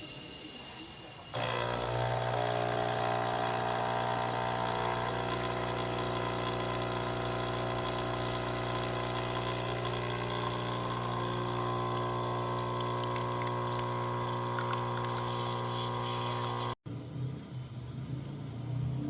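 Capsule espresso machine's electric vibration pump running with a steady buzzing hum as it pushes water through to brew, shifting slightly in pitch partway, then cutting off suddenly near the end.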